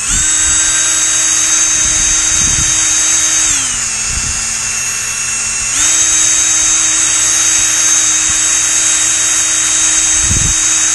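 Cordless drill spinning a 3D-printed mixing paddle in a cup of fiberglass resin thickened with micro balloons: a steady motor whine that starts at once, slows to a lower pitch for about two seconds a few seconds in, then speeds back up and keeps running.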